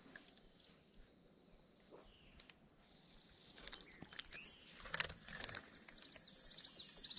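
Faint outdoor ambience with a few soft rustles and knocks. Near the end a bird calls a quick run of high, arching chirps.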